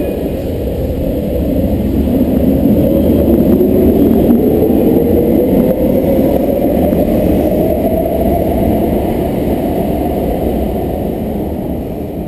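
Brussels metro train pulling out of the station, its traction motors giving a whine that rises in pitch as it speeds up, over a rumble that grows louder and then fades as the train leaves.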